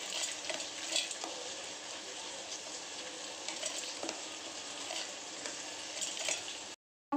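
Steady sizzle of shallots, green chillies and curry leaves sautéing in hot oil, with a few light clicks of a spoon and roasted lentils dropping into a steel mixer jar. The sound cuts out suddenly near the end.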